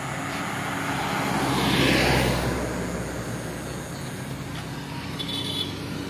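A motor vehicle passing on the road: tyre and engine noise swells to its loudest about two seconds in and fades away, over a steady low hum. A brief high chirp comes about five seconds in.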